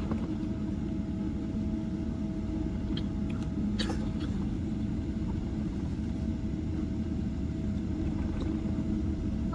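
Cabin noise inside a Boeing 777-300 taxiing after landing: a steady low rumble from the idling engines and rolling wheels, with a faint steady hum through it and a couple of faint clicks three to four seconds in.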